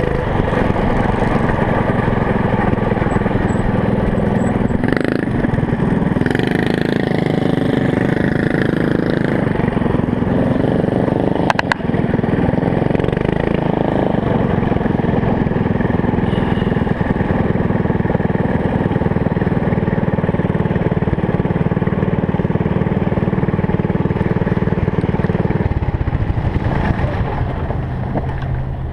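Small engine of a motorized trike running steadily under way, its pitch shifting with the throttle and dropping to a lower speed near the end. One sharp knock about twelve seconds in.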